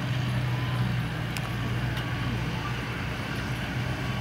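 A motor vehicle's engine running steadily with a low, even drone, with a few faint short beeps over it.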